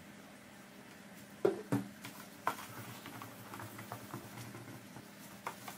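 A few light knocks about a second and a half in as a small plastic bottle of rubbing alcohol is handled and set down on a wooden table, then soft rubbing and light ticks as a paper tissue wipes the corrugated PVC sheet clean of marker ink.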